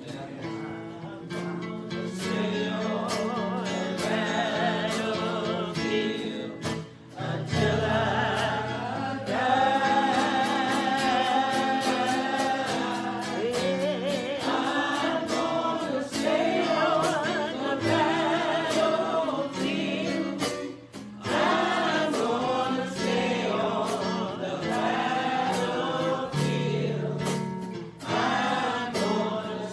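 Gospel music with a choir singing over instrumental accompaniment.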